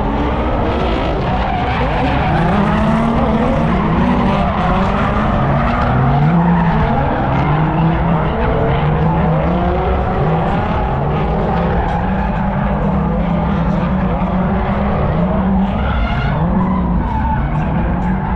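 Car engines revving hard, rising and falling in pitch over and over, with tyres skidding: cars drifting.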